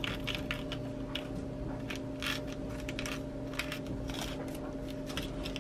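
Small zip-top plastic bag crinkling and glass beads clicking as the beads are handled and slipped back into the bag, a string of short, irregular rustles and clicks.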